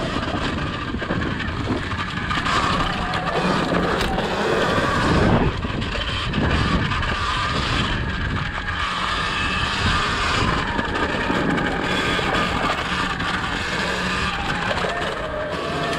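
Surron Ultra Bee electric dirt bike ridden over a leaf-covered dirt trail: a steady rush of tyre, drivetrain and wind noise with no engine note, swelling briefly about five seconds in.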